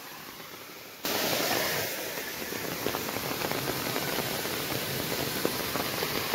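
Rain-swollen drain rushing in heavy rain: a steady hiss of water that gets abruptly louder about a second in, with scattered raindrop ticks through it.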